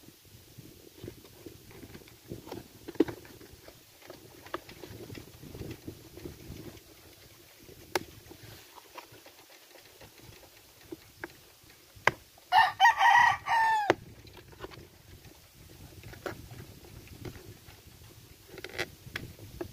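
A rooster crows once, a single pitched call of about a second and a half that falls away at the end, about two-thirds of the way in; it is the loudest sound here. Around it come light scattered taps and knocks of cardboard dividers being handled and fitted into a corrugated-plastic derby box.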